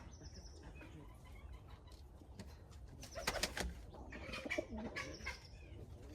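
Pigeons cooing, with a short burst of wing flapping about three seconds in.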